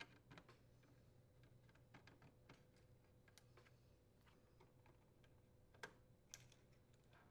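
Near silence with faint, scattered clicks and ticks of a Phillips screwdriver working the small mounting screws out of a microwave's main control board. Two sharper clicks come about six seconds in.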